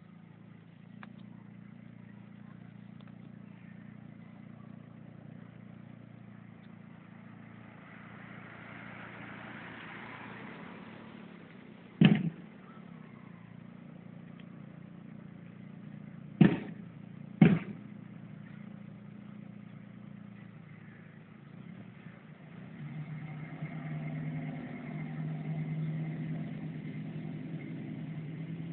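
A car engine running slowly in the street, a steady low hum that grows louder near the end. Three sharp knocks cut through it: one about twelve seconds in, then two close together about four seconds later.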